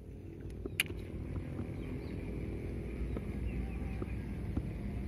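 Outdoor pondside ambience: a steady low rumble that swells in over the first second, faint bird chirps, and a sharp click about a second in.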